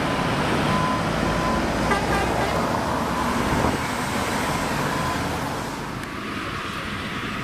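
Scania P280 fire engine's diesel engine running as it pulls away, over a steady rumble of road traffic. The sound drops a little about six seconds in.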